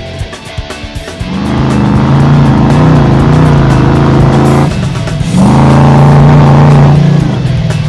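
Loud vehicle engine sound effect, revving with a wavering pitch in two long spells with a short break about five seconds in, over rock-style background music; the first second is the music alone.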